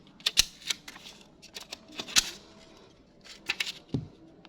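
Scattered sharp clicks and light taps of a DDR4 laptop RAM stick being handled and pressed into its slot, with a brief rustle about two seconds in and a dull thump near the end.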